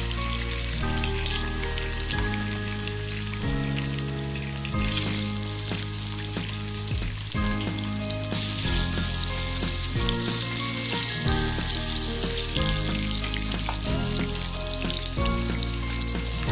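Rohu fish steaks sizzling as they fry in hot oil in a pan, a steady crackling hiss that grows louder about five seconds in and again past eight seconds.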